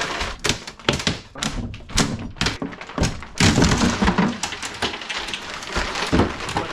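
Irregular wooden knocks and thunks, with a rougher scraping stretch in the middle, as an old wooden cabinet is pried and knocked loose from the wall.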